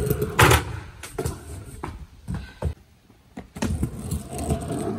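Stunt scooter wheels rolling over pavement with a low rumble, broken by a loud sharp clack about half a second in and a few lighter clicks of the scooter on the ground; the rolling fades for a moment around the middle and then picks up again.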